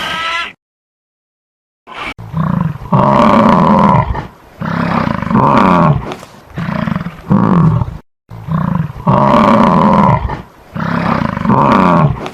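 A large animal roaring: a series of loud, deep calls that begins about two seconds in, breaks off briefly near the middle, then starts again.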